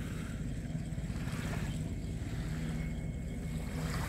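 Small surf washing onto a sandy beach, with wind rumbling steadily on the microphone.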